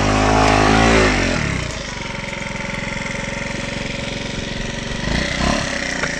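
Small motor scooter engine revved hard, its pitch rising then falling in the first second or so, then settling into a steady lower run with a faint high whine as the scooter goes into deep mud. A few short knocks come near the end.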